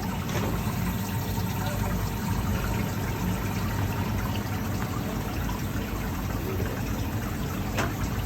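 Ice machine running: a steady low hum with water trickling through it.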